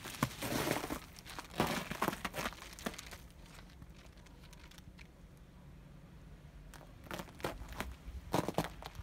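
Irregular crunching and rustling close to the microphone, like footsteps on snow and rubble. It dies down in the middle and picks up again near the end.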